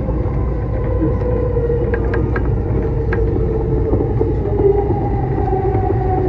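Musashino Line electric train running, heard from inside the front car: a steady rumble of wheels on rail with a wavering hum that rises slightly near the end, and a few light clicks about two to three seconds in.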